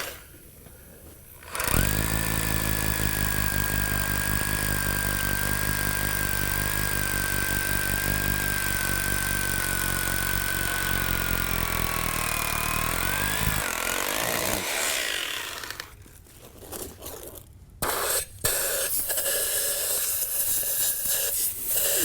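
Hammer drill drilling into concrete for a wedge anchor: a long steady run of about twelve seconds whose pitch sags slightly just before it stops, then after a short pause a second burst of drilling near the end.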